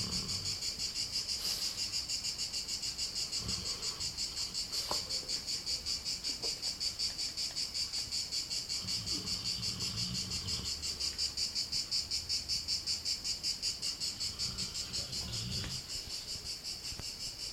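Crickets chirping in a steady, rapid pulse throughout. Under them, faint low snoring breaths from a sleeping pet come every few seconds.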